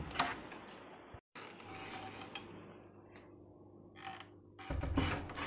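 Metal door lever handle and latch being worked by hand: sharp clicks and rattles, with louder clattering near the end.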